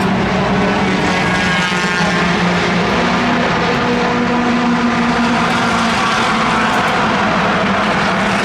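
Race car engine running steadily, its pitch rising a little in the middle and then settling back.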